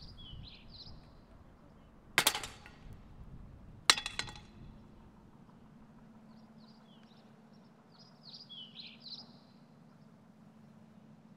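A metal pogo stick drops onto asphalt and clatters: one hit about two seconds in and a second, ringing clang about two seconds later. Birds chirp near the start and again near the end.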